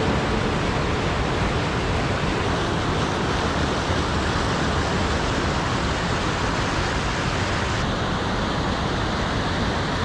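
A waterfall swollen to a torrent by snow melt and heavy rain, a dense steady rush of falling water. Its tone shifts slightly about two and a half seconds in and again near the end.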